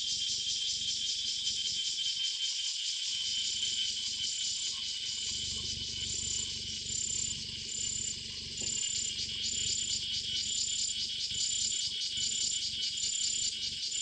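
Dense, steady chorus of night insects trilling in forest, with a high, clipped call repeating about once a second from a few seconds in.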